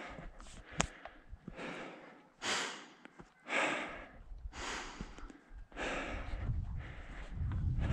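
Heavy, rhythmic breathing of a hiker scrambling up rocks at high altitude, about one breath a second. There is a sharp click just under a second in, and a low rumble builds near the end.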